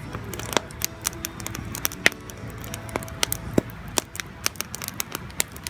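Small wood campfire crackling and popping, with irregular sharp snaps several times a second.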